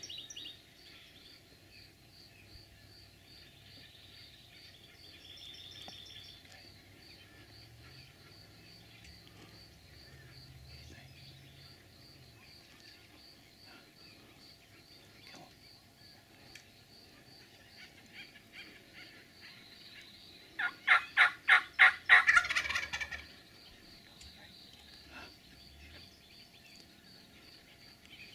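Wild turkey gobbler gobbling once, a loud rapid rattling call of about two seconds, about three-quarters of the way through. A faint steady high ticking, about three a second, runs underneath.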